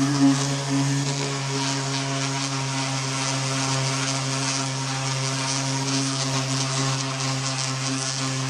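Power sander running steadily, a constant motor hum under an even scratchy hiss as it sands down cured Bondo body filler over a welded sheet-metal patch panel.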